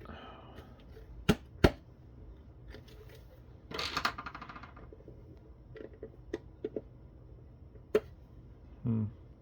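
Sharp plastic clicks and snaps with a short crackling rattle as a tweeter is pried out of its foam and adhesive mount in a plastic speaker housing. Two loud clicks come about a second and a half in, the crackle about four seconds in, then a few small ticks and another sharp click near the end.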